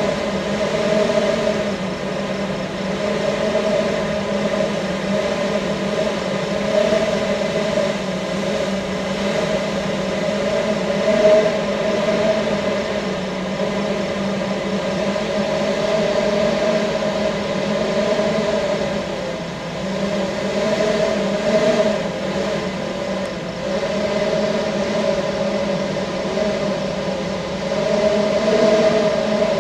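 Monroe Reservoir's lake drain at the dam outlet, giving a steady drone: a low hum and a higher warbling tone that waver slowly over a wash of rushing noise.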